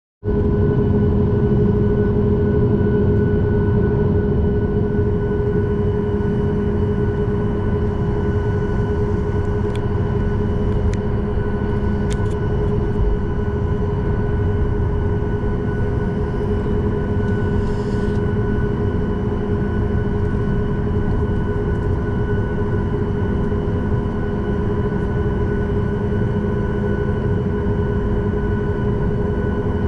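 Cabin noise of a Boeing 737 MAX 8 taxiing, heard from a window seat over the wing: the CFM LEAP-1B engines running at low taxi thrust. It is a steady drone of several held tones over a low rumble, with a few faint clicks about ten to twelve seconds in.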